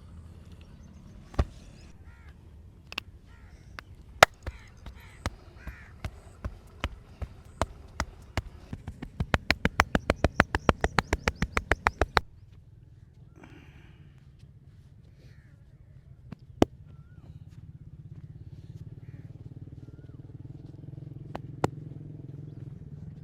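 Percussive massage strokes, hands slapping the body: a single sharp slap, then an evenly spaced run of slaps that quickens to about five a second for a few seconds and stops abruptly, then two more single slaps.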